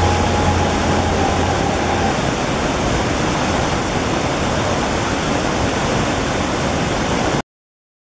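Steady rush of running water, like a stream or waterfall, with a low hum and a faint tone under it that fade out about two seconds in. The sound cuts off suddenly near the end.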